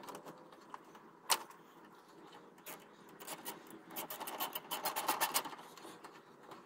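Small socket ratchet clicking in rapid runs as a worm-screw hose clamp on the upper radiator hose is tightened, after a single sharp click about a second in.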